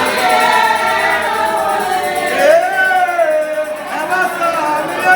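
A group of voices singing together, a gospel church song.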